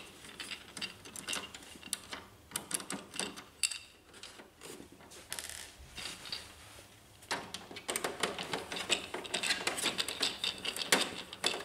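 Screwdriver backing out the screws in the plastic rear cover of a Brother HL-1110 laser printer: a run of small sharp clicks and scrapes, which pauses for a few seconds and picks up again about seven seconds in.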